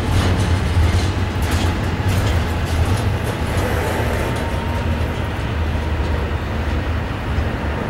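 Intermodal freight train cars carrying truck trailers rolling past close by: a steady low rumble of steel wheels on rail, with scattered clicks and clanks. A faint thin whine sits above it and fades out about two-thirds of the way through.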